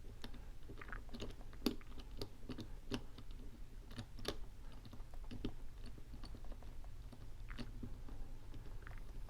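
Irregular small clicks of a Master 875 combination padlock's number wheels being turned notch by notch while the shackle is held under tension, feeling for the wheel position that turns loose instead of binding.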